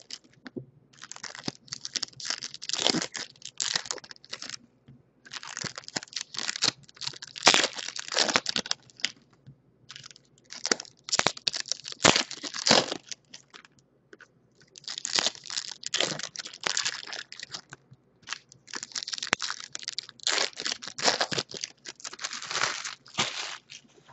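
Foil wrappers of Bowman Chrome baseball card packs being torn open and crinkled by hand. The crackly rustling comes in repeated bursts a second or two long, with short quiet gaps between as the cards are pulled out.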